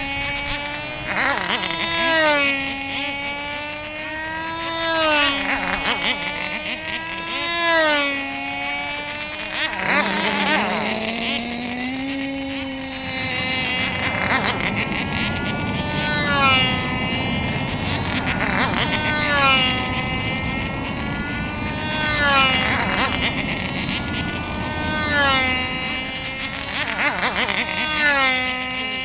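Small two-stroke model aircraft engines on control-line racing models running flat out as the planes circle, the pitch and loudness rising and falling once per lap, about every two and a half to three seconds. A second, lower-pitched engine joins about ten seconds in, so two engines run together.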